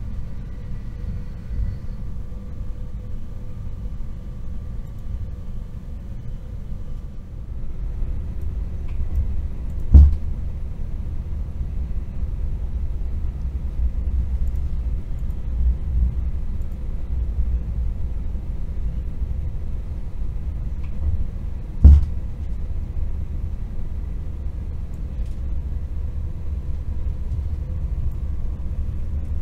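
Inside a Stadler KISS double-deck electric train (DB Intercity 2) running at speed: a steady low rumble, broken by a loud bang about ten seconds in and another twelve seconds later. The train makes this rather loud bang every twelve seconds; its cause is unexplained and it didn't seem to cause any harm.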